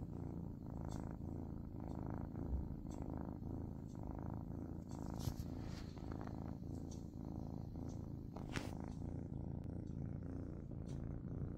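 Domestic kitten purring steadily, close up, with a faint pulse about once a second.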